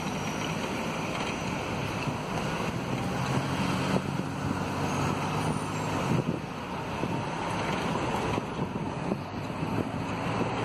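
Steady road and traffic noise of a car driving slowly in city traffic, heard from inside the car, with a low engine hum standing out for a few seconds in the middle.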